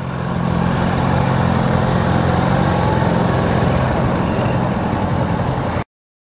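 Kawasaki Versys 650 parallel-twin motorcycle engine running steadily, with road and wind noise, heard from the bike's onboard camera. The sound cuts off abruptly near the end.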